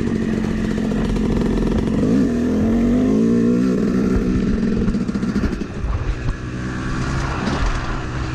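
Yamaha YZ250 two-stroke dirt bike engine running under way, its revs climbing and falling a few times, then easing off about six seconds in.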